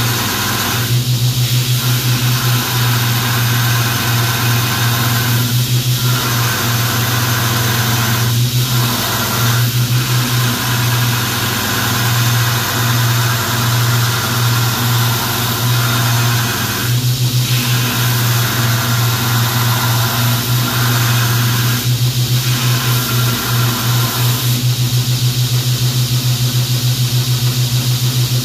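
Knife-making belt grinder running with a steady, pulsing hum while a 1095 carbon-steel knife blank is ground on the belt, a grinding hiss over it. The hiss breaks off briefly several times and stops near the end, leaving the motor and belt running.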